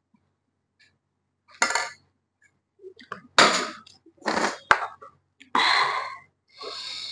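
Close-miked eating sounds as rice and curry are eaten by hand: a series of short, wet, noisy bursts, with one sharp click about halfway through.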